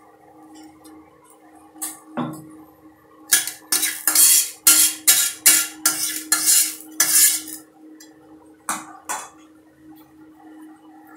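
Scraping and rubbing strokes inside an empty, wet non-stick kadai on an induction cooktop. There is a knock about two seconds in, then a quick run of about ten strokes, and two more near the end, over a steady low hum.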